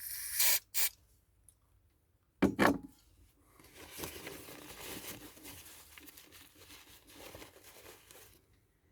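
Short hissing bursts from an aerosol can of carburetor cleaner being sprayed through small carburetor parts, then several seconds of softer rustling and rubbing.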